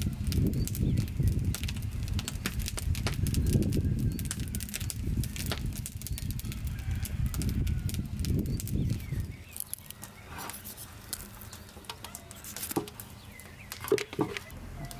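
Gusty wind rumbling on the microphone for about the first nine seconds, then a quieter outdoor stretch with faint bird chirps and a few sharp knocks from a knife cutting up a plucked duck.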